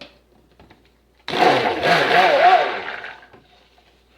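Immersion stick blender running in a burst of about two seconds, starting about a second in, its motor pitch wavering as it mixes lye solution into soap oils for cold-process soap batter.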